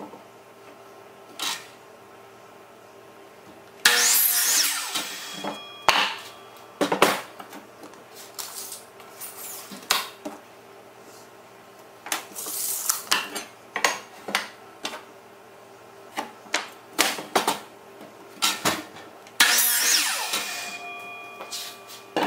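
DeWalt compound miter saw making two cuts through lumber, about 4 seconds in and near the end; each cut starts suddenly and the motor's whine falls away over a second or two as the blade spins down. In between, short wooden knocks and clatter as the board is handled, measured and marked.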